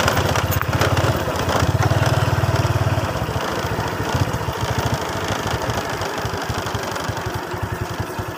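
Small motorcycle's engine running while riding, a rapid, even low exhaust pulsing. It is louder for the first three seconds, then quieter.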